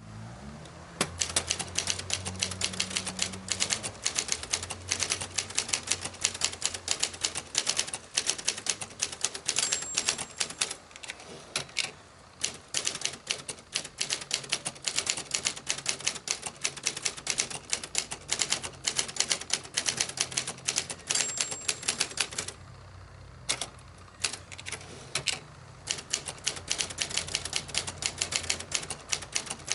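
Brother Accord 10 ultraportable manual typewriter being typed on: rapid, uneven key strikes with two short breaks in the typing. A brief high ding sounds twice, each a second or two before a break.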